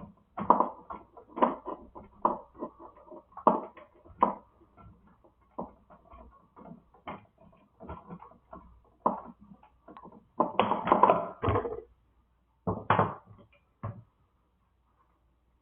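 Irregular clicks, taps and handling noises of hand tools and electrical wire being worked in a light-switch box, louder and busier about eleven seconds in.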